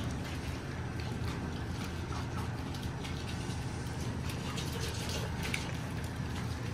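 Saluki puppies moving about on a laminate floor: scattered light clicks and taps over a steady low hum.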